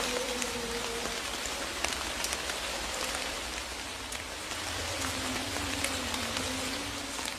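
Steady rain, an even hiss with scattered small drop ticks, and a faint low hum through the second half.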